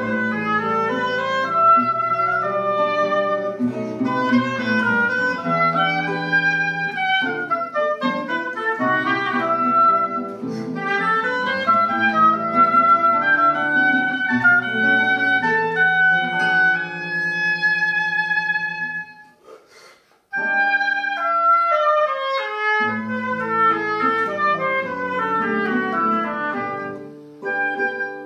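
Duet for classical guitar and woodwind playing a Colombian pasillo, the woodwind's melodic line over plucked guitar accompaniment. A long held note gives way to a break of about a second two-thirds of the way through, then the playing resumes and fades near the end.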